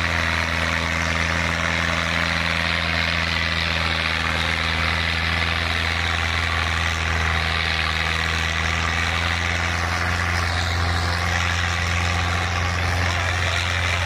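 Fiat 640 tractor's diesel engine running steadily under heavy load as it drags a disc harrow through the soil, a constant low drone.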